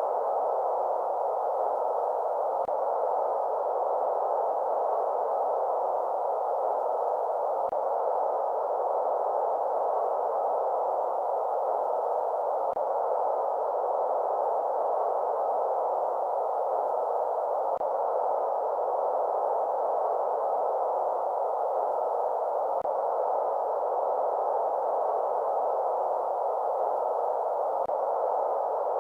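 Steady, unchanging white-noise track for baby sleep, filtered to a soft mid-pitched hush with no highs or deep lows. A faint low blip recurs about every five seconds.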